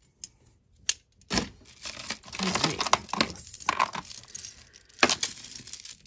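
Costume jewelry clinking and jangling as a tangled metal necklace of dangling drops is pulled from a plastic tub of jewelry, starting about a second and a half in and going on busily. Just before it, a sharp click as the hinged cuff bracelet is opened.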